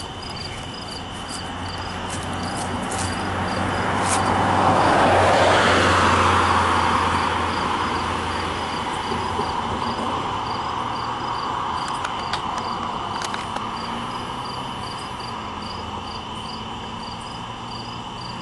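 Crickets chirping steadily over the low, steady rumble of a slow-moving double-stack intermodal freight train rolling past. A broad rushing swell builds to its loudest about five seconds in and then fades slowly, like a passing vehicle.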